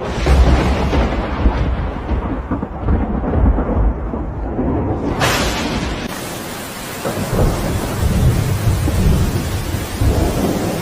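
Thunderstorm: a low, continuous rolling rumble of thunder, joined about five seconds in by a steady hiss of rain.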